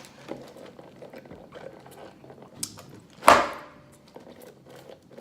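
Quiet eating and handling noises at a table: small scattered clicks and rustles, with one loud sudden noise a little over three seconds in.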